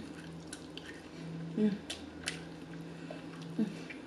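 Close-up mouth sounds of eating: wet smacks, clicks and chewing as meat is gnawed off a baby back rib bone held in the hands. Short hummed murmurs come about a second and a half in and again near the end.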